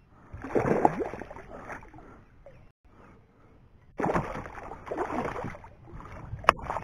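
A hooked trahira thrashing at the water surface beside a kayak, splashing in two bursts, about half a second in and again about four seconds in. A short sharp click comes near the end.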